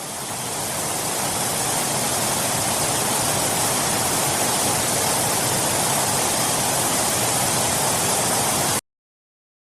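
Steady rushing of a waterfall, growing a little louder over the first second or two, then cutting off abruptly about nine seconds in.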